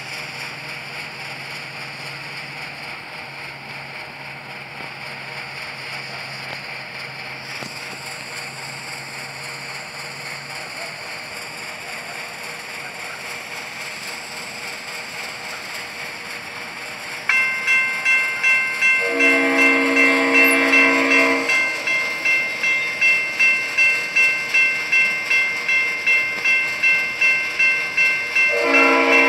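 A railroad crossing bell starts ringing suddenly about 17 seconds in, at about two strokes a second, as the crossing activates for an approaching freight train. A couple of seconds later the train's diesel locomotive horn sounds one blast of about two seconds, and another blast begins near the end. Before the bell there is only steady background noise.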